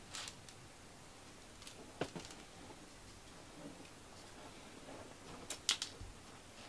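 Cat scratching and raking clay litter in a plastic litter box: a few short, faint scratchy rakes of litter granules, just after the start, about two seconds in with a light knock, and the loudest pair near the end.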